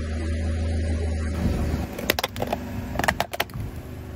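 A car's low engine hum, then a run of sharp cracks and snaps as a hard plastic toy breaks under the car's tyre, loudest about three seconds in.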